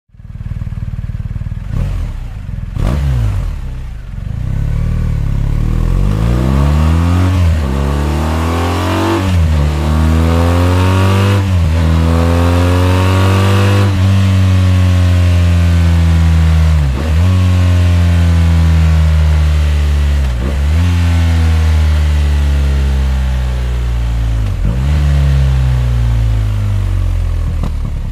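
BMW R 1250 RT's 1254 cc boxer twin on its standard exhaust, accelerating hard through the gears: the pitch climbs and drops at each upshift, about every two seconds, four times. After that the engine runs on with its pitch sliding slowly down, broken by a few brief dips.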